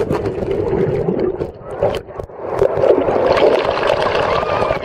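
Shallow surf wash swirling over and around a waterproof camcorder at the waterline: water gurgling and splashing right against the microphone, with a brief dip about a second and a half in.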